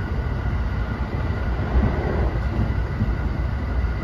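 Running noise heard inside the unpowered trailer car of a JR West 321 series electric commuter train: a steady low rumble of wheels on rail, with a faint steady high whine.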